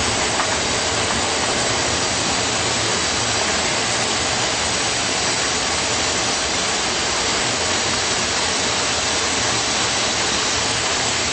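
Steady, even rushing noise on the flight deck of a Boeing 727-200 descending on approach, a constant hiss of air and engine noise with no change in level.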